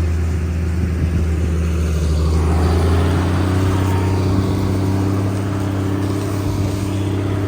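A vehicle engine running steadily at a constant low pitch, with a rise in its higher tones from about two and a half seconds in.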